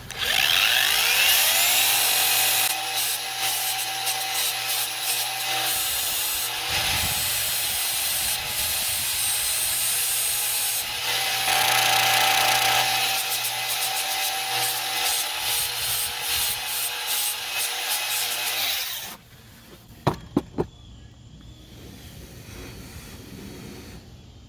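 A small power tool's motor whines up to speed and grinds a stainless steel strip being shaped into a lock pick, a steady rasping with a constant whine under it. It cuts off about 19 seconds in, followed by a few sharp clicks.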